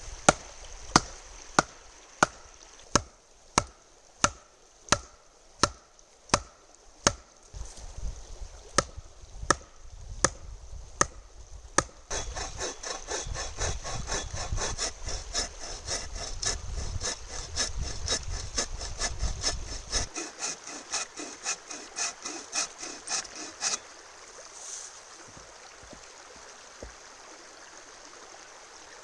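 Steady blows, about one and a half a second, driving wooden posts into the ground. Then a saw cutting wood in quick strokes for some ten seconds, and near the end only running river water.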